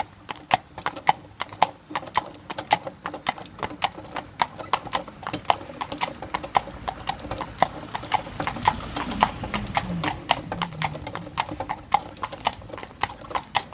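Welsh cob's hooves clip-clopping on a tarmac road in a steady, even rhythm as it pulls a carriage.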